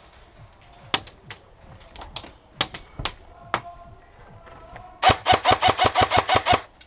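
Scattered sharp single cracks of airsoft fire, then about five seconds in a rapid burst of about a dozen shots from an Ares Amoeba AM-013 electric airsoft rifle on full auto, lasting under two seconds.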